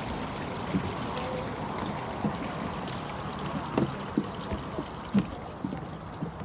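Water steadily trickling and bubbling from a small stone bowl fountain, with a few soft thumps in the second half.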